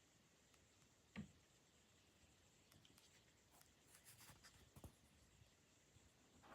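Near silence: room tone with a faint knock about a second in and a few faint scratchy clicks and rustles around four to five seconds.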